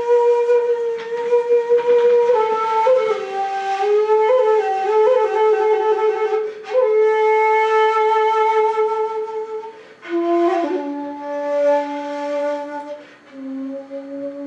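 Bamboo shakuhachi playing a slow honkyoku melody: long held notes with wavering pitch bends and breathy, airy attacks. About ten seconds in the line drops to lower, steadier tones, and a second shakuhachi joins near the end.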